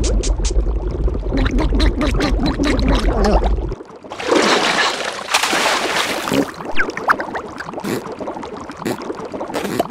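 Cartoon underwater sound effects: bubbling and clicks over a low rumble. About four seconds in, this cuts to a loud water splash lasting a couple of seconds as a character bursts up out of the water. Bubbling and a few short cartoon vocal sounds follow.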